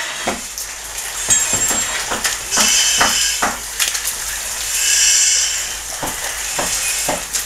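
Fire burning inside a room, crackling with irregular sharp snaps and pops. Over it, a hiss swells for about a second every two to three seconds, like firefighters' breathing apparatus with each breath.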